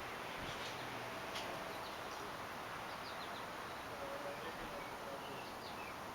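Outdoor ambience: a steady background hiss with small birds chirping briefly here and there.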